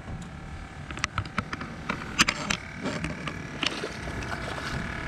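A few sharp clicks and knocks over a low background as a hooked peacock bass is handled and unhooked against the side of an aluminium jon boat.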